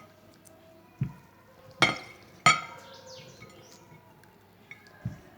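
Pieces of cut turnip dropped into a glass jar: a soft knock about a second in, then two sharp glassy clinks with a short ring, and a low knock near the end.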